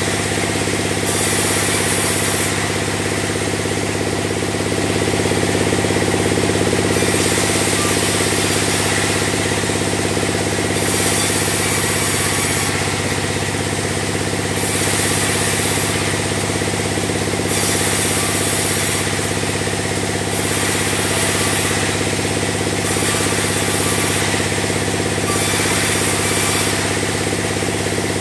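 Sawmill log band saw running steadily with a deep machine hum, and a high hiss that comes and goes every couple of seconds as the blade saws timber into beams.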